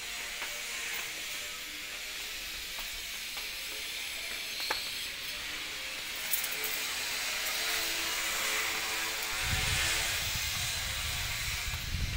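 Steady high hiss of background noise with a few faint clicks, joined by a low rumble about nine and a half seconds in.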